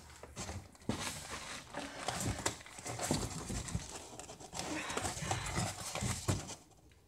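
Styrofoam packing and a cardboard box being handled: irregular rubbing, scraping and small knocks as the foam blocks are worked out of the box, dying down near the end.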